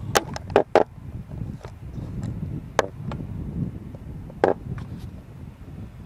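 Wind buffeting the camera microphone, an uneven low rumble, with a few sharp clicks and knocks: a quick cluster in the first second, then single ones a couple of times later.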